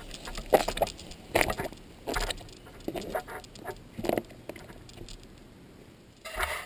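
Footsteps in rubber clogs on slippery wet ground, irregular steps about once a second that fade out after about four seconds.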